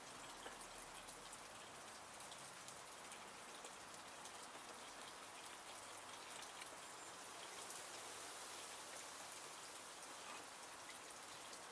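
Near silence: a faint steady hiss with scattered light ticks.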